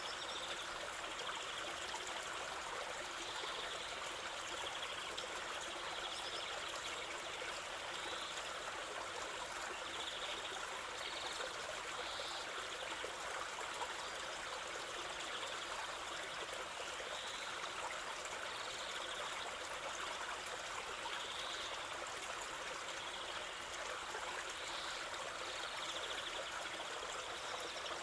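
River water flowing steadily over stones, a continuous rushing and trickling, with faint short high-pitched sounds every second or two.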